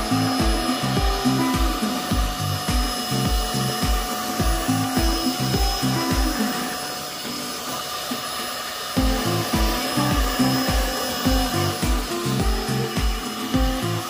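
Background music with a steady drum beat, which drops out for a couple of seconds about halfway through, over the steady high whine of a PerySmith Sonic Pro X5 cordless handheld vacuum running with its crevice tool.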